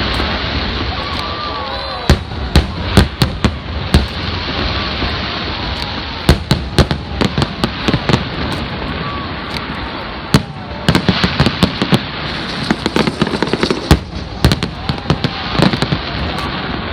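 A fireworks display: sharp bangs of bursting aerial shells, coming in clusters every few seconds over a steady rumbling wash of noise.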